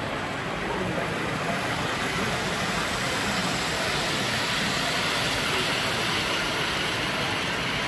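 Steady background din of a large, crowded exhibition hall, growing a little louder midway.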